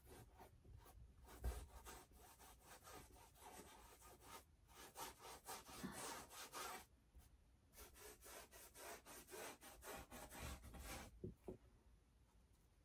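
Faint rubbing scrapes of a paintbrush scrubbing paint onto a canvas, in quick runs of strokes with short pauses about four and a half and seven seconds in.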